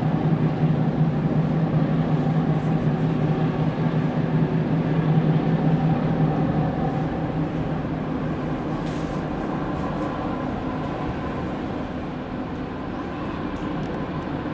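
Tugboat diesel engines droning steadily under load while towing a floating crane vessel, a low hum with steady tones over it that eases off somewhat about halfway through.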